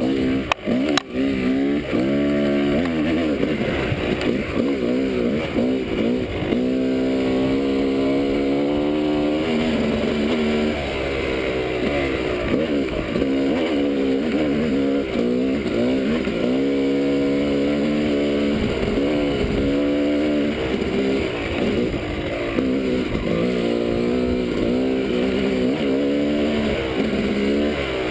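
Yamaha dirt bike engine under way on a trail, its pitch rising and falling over and over as the throttle opens and closes and the gears change. A couple of sharp knocks come about a second in.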